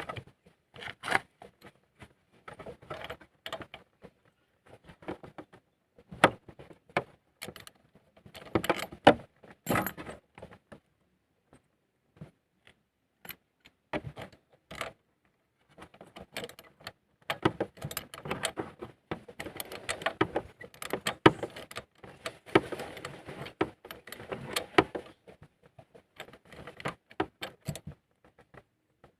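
Metal tools clinking and clicking in irregular bursts while the old spark plug is taken out of a Honda EX5 Dream's 100cc engine.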